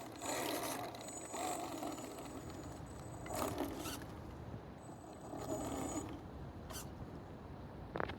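A 3D-printed RC crawler with a 3530 brushless motor and belt-driven gearbox drives in two short runs, the motor giving a thin, high, steady whine. Scraping and crunching from the crawler moving over rough ground come and go in short spells.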